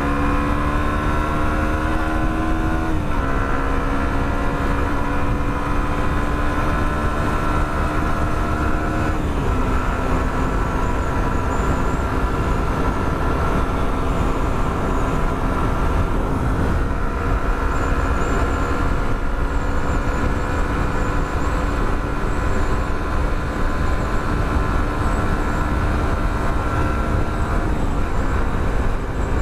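Yamaha R15 v2 motorcycle's single-cylinder engine pulling away under acceleration, its pitch climbing and dropping at upshifts about 3 s and 9 s in and again near the end, then holding a nearly steady cruise. Wind rumbles over the rider's microphone.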